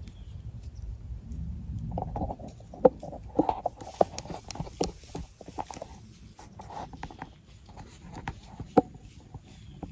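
Close rustling, crackling and sharp clicks of a handheld camera being handled and moved, two clicks much louder than the rest, after a low wind rumble on the microphone for the first two seconds.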